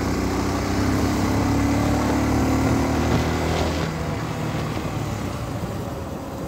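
Dirt bike engine running steadily under throttle while riding in traffic, then easing off about four seconds in.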